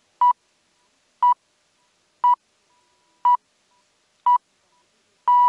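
The BBC Greenwich Time Signal, the 'pips': six high beeps one second apart, five short and the sixth longer, marking six o'clock on the hour before the news.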